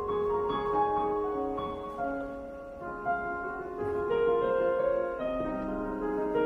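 Yamaha CK88 stage keyboard playing its sampled Yamaha CFX grand piano sound: improvised chords and melody notes that ring and sustain, changing every second or so, softer around two to three seconds in and fuller near the end.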